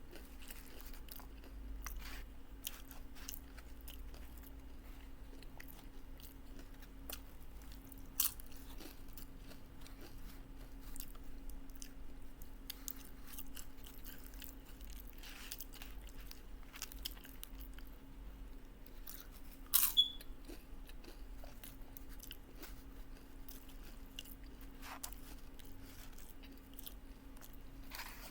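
Close-up chewing and crunching of taco salad with tortilla chips: many small crisp crunches, with two sharper, louder crunches about 8 and 20 seconds in. A faint steady hum runs underneath.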